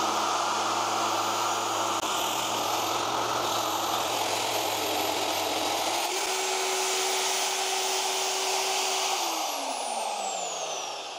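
Magnetic drill motor running loud and steady while its annular cutter bores at an angle through thick-walled steel round tube. Near the end the motor is switched off and its pitch falls as it spins down.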